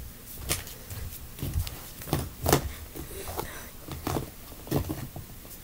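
Plush toys being handled and set down on a carpet: a string of soft, irregular taps and rustles, about eight in all.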